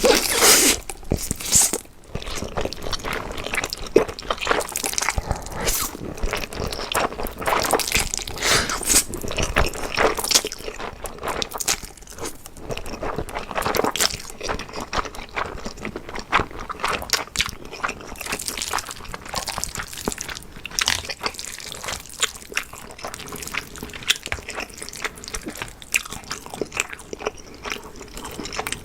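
Close-miked eating of Samyang Carbo Buldak instant noodles: a dense, irregular run of wet slurping, smacking and chewing sounds with frequent crisp clicks.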